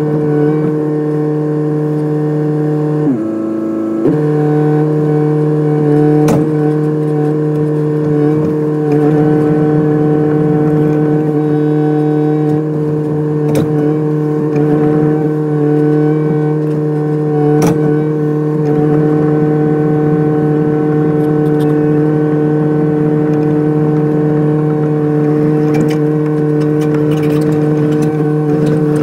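Kubota excavator's diesel engine running steadily at a constant speed, briefly dipping in pitch about three seconds in as if under load. A few single sharp knocks sound over it.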